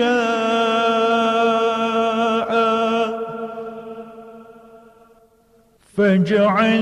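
A male reciter's voice chanting the Quran in tajweed style, holding one long steady note at the end of a word. The note fades away to near silence over about two and a half seconds, and about six seconds in the next phrase begins with gliding pitch.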